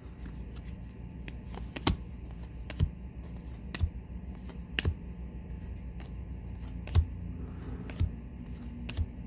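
Trading cards being handled and set down one at a time: a sharp click or tap about once a second over a faint low hum.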